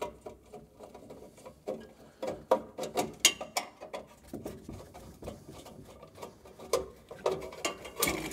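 Phillips screwdriver turning out sheet-metal screws that hold an evaporator coil to a metal cold box: irregular small clicks and scrapes of metal on metal, a few sharper ones among them.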